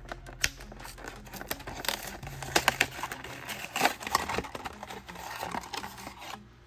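Plastic blister and cardboard backing card of a die-cast toy car package crinkling and tearing as it is pulled open by hand, a run of irregular sharp crackles.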